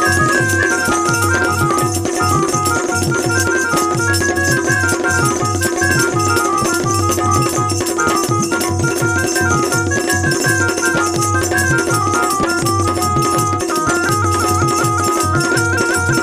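Instrumental interlude of Bundeli lamtera folk music: an organ-like keyboard plays a stepping melody over a steady held drone note, with a driving drum beat and constant jingling percussion.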